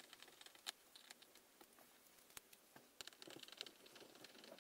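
Near silence with faint, scattered clicks and light scraping: a small screw being turned by hand with a screwdriver into the plastic back of a computer keyboard.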